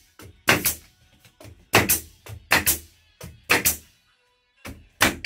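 Background music carried by a drum kit: strong kick and snare hits, often in pairs, with a short break about four seconds in.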